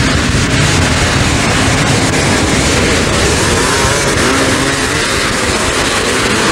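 A pack of 500 cc motocross motorcycles revving hard together as they pull away from the start, one dense, steady engine noise with pitches rising and falling.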